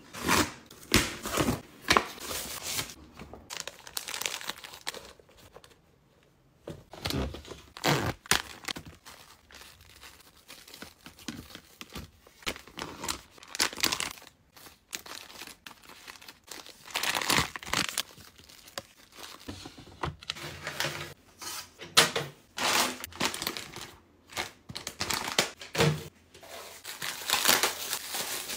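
Thin plastic packaging crinkling and tearing as items are unwrapped and handled, in irregular bursts, with occasional knocks of boxes and items being set down.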